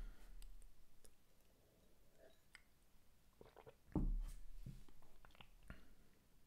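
Faint scattered small clicks, with one louder knock and low thud about four seconds in.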